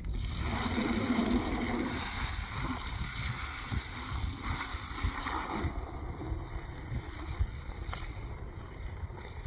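Water from a hose running into a plastic bucket, a steady splashing hiss that grows quieter about six seconds in.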